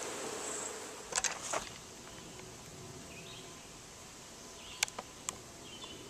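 Honeybees flying and buzzing faintly, with a few light clicks about a second in and two sharp ticks about five seconds in.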